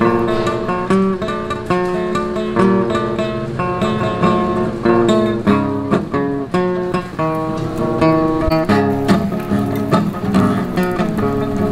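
Background music: an acoustic guitar playing a lively melody of plucked notes and strummed chords.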